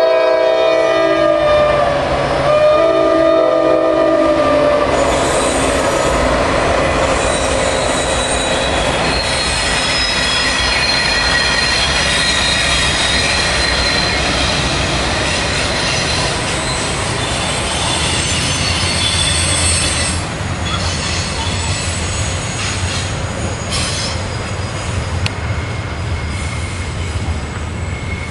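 Norfolk Southern diesel freight locomotives passing, their multi-note air horn sounding two blasts in the first five seconds. Then the double-stack train's wheels squeal steadily against the rails on the sharp curve, over the rumble of engines and rolling cars.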